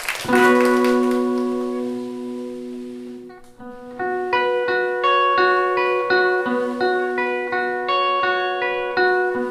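A guitar strikes a chord that rings out and fades over about three seconds. It then starts a repeating picked figure of single notes at an even pulse, the intro of a song.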